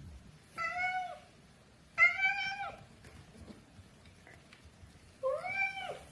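Domestic cat meowing three times, begging for food: three drawn-out meows a second or two apart, the last rising then falling in pitch.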